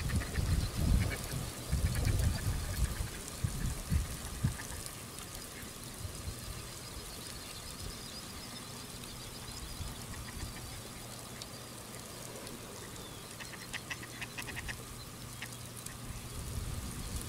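Ducks quacking in short runs at a distance. Low gusts of wind buffet the microphone for the first few seconds.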